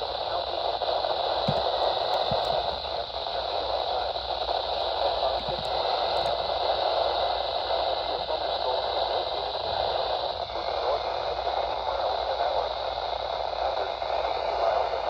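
Steady hiss of radio static from a receiver picking up only noise between broadcasts. Its tone shifts slightly about ten seconds in.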